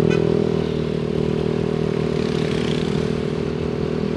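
Yamaha NMAX 155 scooter's single-cylinder engine running at a steady cruising speed, with road and wind noise.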